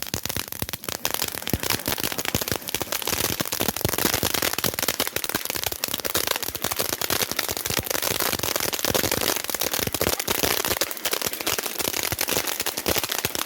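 Small festival fireworks crackling: a dense, continuous run of rapid sharp pops with no pause.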